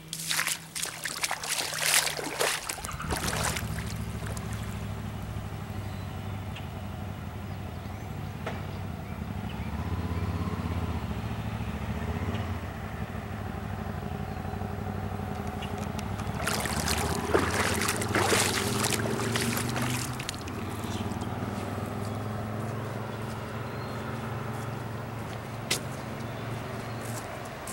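A vehicle engine running low and steady through flood water, with two spells of rushing noise: one in the first three seconds and one about two-thirds of the way through.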